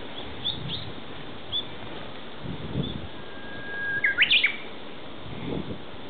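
Japanese bush warbler singing its hō-hokekyo song once, about three seconds in: a long steady whistle followed by a quick flourish of rising and falling notes.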